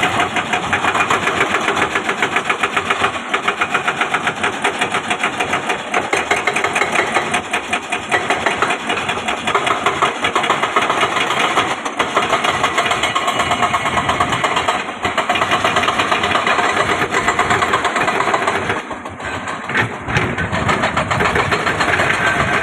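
Heavy-equipment diesel engine running steadily with a fast, even pulse; it drops briefly in loudness about 19 seconds in.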